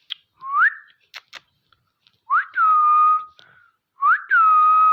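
Three whistles: a short rising one, then two longer ones that rise sharply, dip and hold a steady note, with a few short clicks in between.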